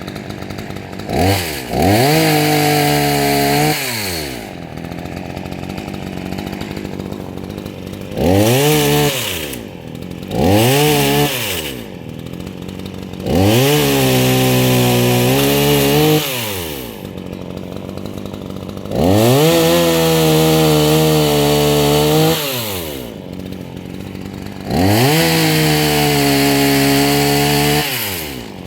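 Two-stroke chainsaw idling and being revved about six times, its pitch climbing, holding for one to three seconds, then falling back to idle each time.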